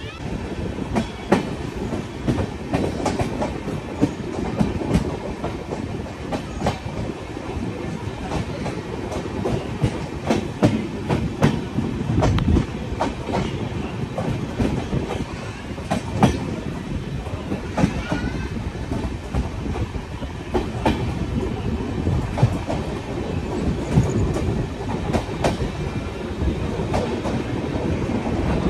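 Indian Railways passenger coach running at speed, heard from its window: a steady rumble of the wheels on the rails, with sharp clickety-clack knocks at uneven intervals as the wheels pass over rail joints.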